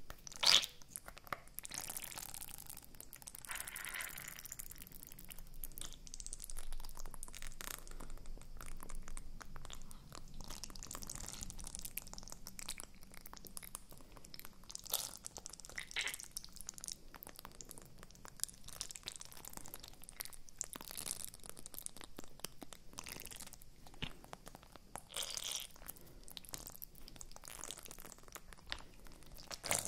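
Ice cracking and crunching inside a silicone honeycomb ice cube tray as the tray is bent and squeezed right up at the microphones: an irregular, constant run of crackles and small snaps.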